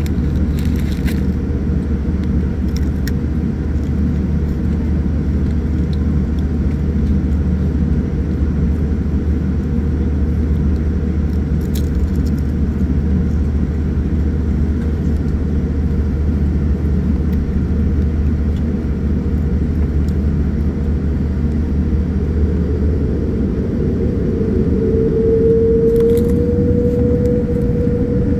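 Cabin noise of a Boeing 787-9 with Rolls-Royce Trent 1000 engines taxiing onto the runway: a steady low engine and airframe rumble. Near the end a humming engine tone comes up and rises slightly in pitch as the engines begin to spool up.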